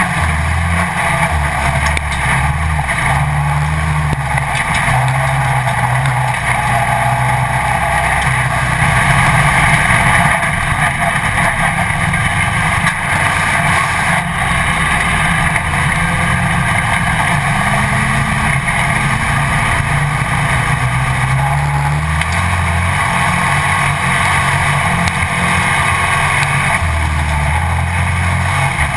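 Dirt-track Pro Stock race car engine, heard onboard from a camera mounted on the car, running hard at racing speed. Its pitch rises and falls every few seconds as the driver gets on and off the throttle through the turns, with a steady rush of wind and road noise.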